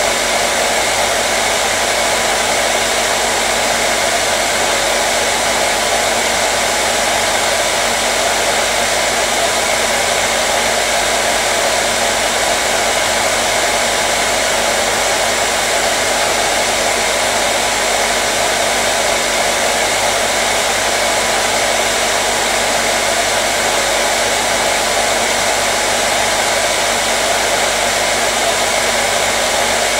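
Hair dryer running steadily: a constant airy whoosh of the blower with a faint motor hum, unchanging throughout.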